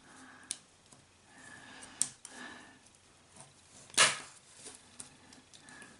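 A few sharp small clicks and taps of a metal scalpel and forceps working at a plastic SIM card, the loudest about four seconds in.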